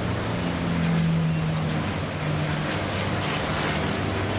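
P-51D Mustang's Packard Merlin V12 engine and propeller droning overhead through an aerobatic roll. The pitch dips slightly about a second in and rises again, over a steady hiss of wind and surf.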